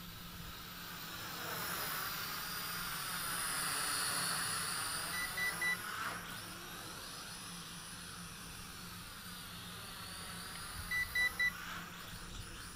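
JJRC H8D quadcopter's small electric motors and propellers whirring as it flies overhead, swelling in loudness and shifting in pitch as it passes. Three quick high electronic beeps sound about five seconds in and again near the end.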